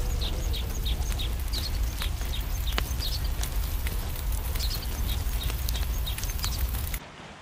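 Wood campfire crackling with scattered sharp pops over a steady rush of river water and a low rumble, while a bird chirps again and again in short high notes. The sound drops suddenly quieter near the end.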